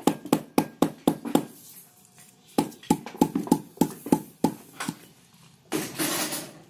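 A bamboo tube being stuffed with fish and fern leaves, knocked again and again on a concrete floor in two quick runs of about four knocks a second, which packs the filling down. A louder rustling noise follows near the end.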